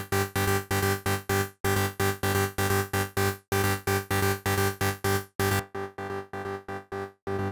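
A big room breakdown synth patch in Native Instruments Massive plays a chord pattern in short, chopped stabs, about four a second. A little past five seconds the top end drops away and the stabs turn duller and quieter.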